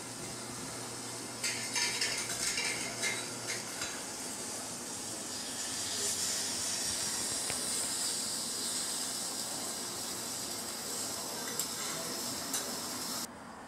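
Utensils clinking and clicking against dishes for a couple of seconds, followed by a steady high hiss that cuts off suddenly near the end.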